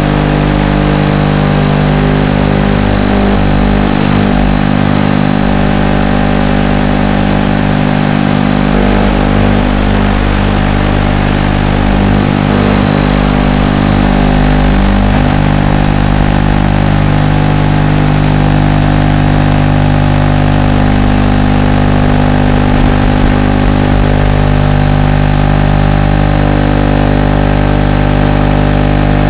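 Steady electrical buzz of unchanging pitch, several fixed tones under an even hiss, with no rise or fall over the whole stretch: noise on the audio track of an FPV drone's video-receiver recording rather than the sound of the motors.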